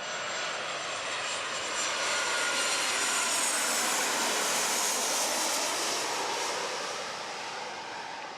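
Jet airliner passing low overhead on its landing approach: the engine noise swells to a peak about four seconds in and then fades, with a high whine that slowly falls in pitch as the aircraft goes by.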